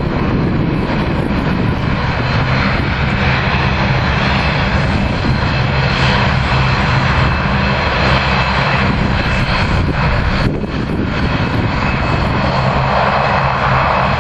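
Turboprop airliner engines running as a Bombardier Dash 8 Q400 taxis, a steady drone with a low propeller hum under a wide rushing noise.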